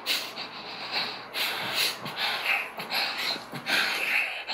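A person whispering in short breathy bursts, with no clear words.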